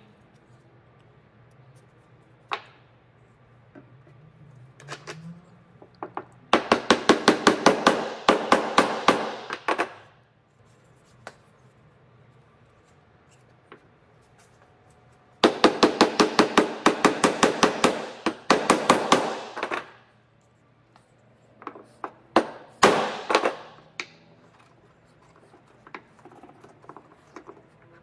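A steel claw hammer striking a wooden dowel handle, driving it into the hole of a wooden mallet head. The blows come in two quick runs of about four a second, each a few seconds long, with a few single knocks between them.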